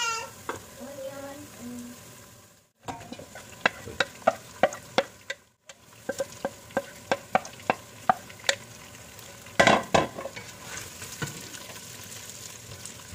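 Sliced onions sizzling in hot oil with garlic and ginger in a stainless steel pot, stirred with a wooden spoon. Sharp pops and taps come in quick succession through the middle, with a louder clatter near the end.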